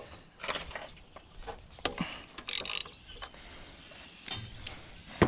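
Hand tools working on a car's engine bay: scattered metallic clicks, clinks and knocks at an uneven pace, with a short hissing scrape about two and a half seconds in.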